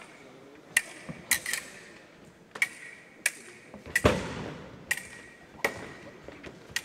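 Steel foil blades clashing: a series of sharp, ringing metallic clicks, roughly one every half second to a second. About four seconds in comes the loudest hit, together with a heavy thud.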